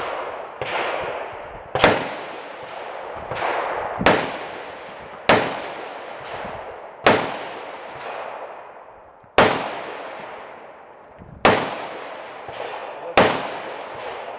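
Gunshots during a 3-gun match stage: eight loud shots fired one to two seconds apart, each trailing off in a long echo, with a few fainter cracks in between.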